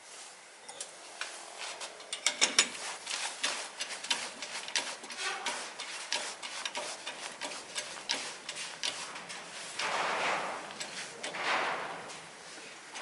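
Irregular clicks and taps of hand work on car parts, several a second, followed by two short rubbing swishes near the end.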